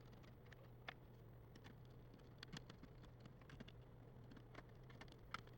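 Faint, scattered small clicks and taps of a laptop being handled and taken apart, over a low steady hum.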